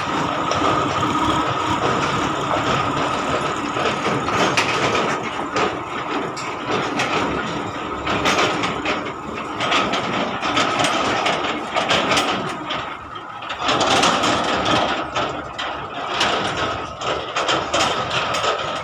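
Hino Ranger diesel truck engine running, with a steady whine and repeated clanks and rattles from the truck and trailer bodywork.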